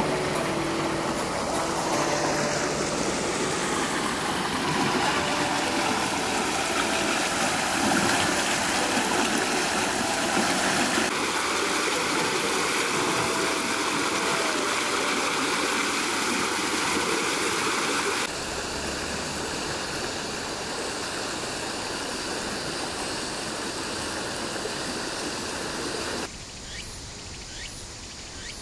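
Water rushing steadily in a channel, a loud, even hiss whose tone shifts abruptly a few times. Near the end it drops away and insects chirp rapidly.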